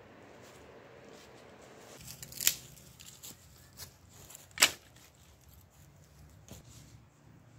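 Dry tinder rustling and crackling as it is handled, with two sharp, loud crackles about two and a half and four and a half seconds in, and a few fainter ones between and after.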